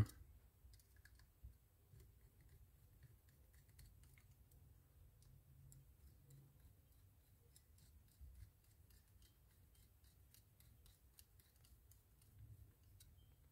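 Faint, quick metallic clicks and ticks of a small screwdriver turning frame screws into a Penn 210 reel, the screws being started one after another.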